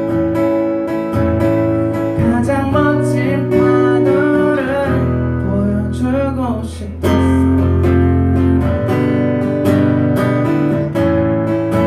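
Acoustic guitar strumming chords in a song's closing instrumental, with a wavering melody line over it for a few seconds in the middle; about seven seconds in the strumming comes back louder and fuller.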